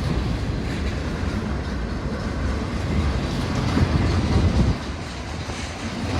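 Container-carrying well cars of a slow freight train rolling past, steel wheels rumbling on the rails with a steady low rumble that eases slightly near the end.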